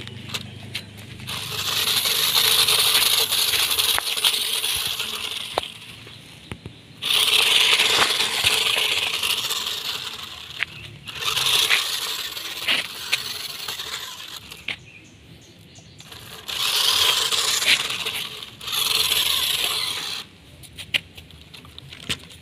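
Toy radio-controlled off-road car's small electric motor and gearbox whirring in about five bursts of a few seconds each as it is driven over dirt, with sharp clicks and crunching from the tyres and pebbles between the bursts.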